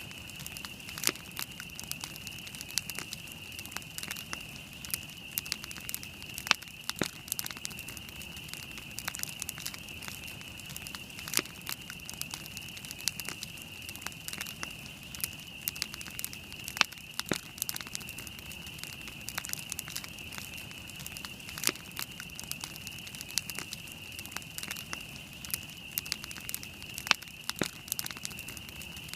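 Wood campfire burning, with dense irregular crackles and sharp pops several times a second, a few louder snaps standing out. A steady high-pitched tone runs underneath throughout.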